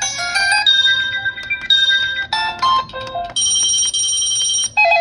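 Electronic chime tunes from a wireless doorbell's receiver, played one after another as it is stepped through its built-in melodies. About six short snippets of bright beeping tones, each cut off abruptly by the next, ending in a fast warbling trill.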